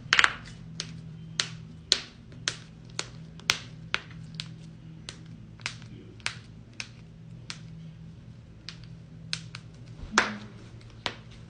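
A run of sharp cracking pops from body cracking, about two a second, the loudest at the start and about ten seconds in, over a steady low hum.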